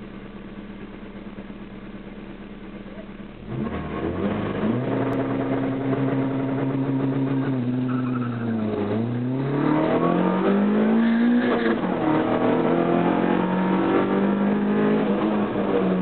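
Škoda Felicia 16V rally car's four-cylinder engine heard from inside the cabin: idling, then revved up about three and a half seconds in and held steady at the start line. About nine seconds in the revs dip as the car pulls away, climb again through first gear, drop at a gear change about twelve seconds in, and drop again near the end.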